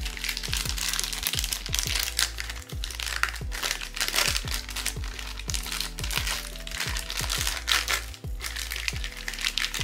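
Blind-box packaging crinkling and rustling as it is handled and opened, with a short break about eight seconds in, over background music with a regular low beat.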